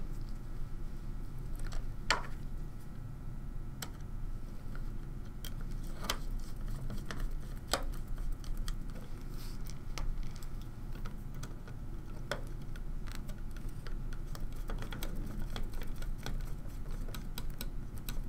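Scattered light clicks and taps of small screws, plastic standoffs and a screwdriver being handled and fitted while a Raspberry Pi board is fastened to a plastic mount, one sharp click every second or two over a low steady hum.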